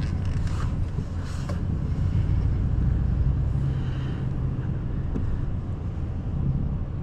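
Motor vehicle running on the road with a steady low drone.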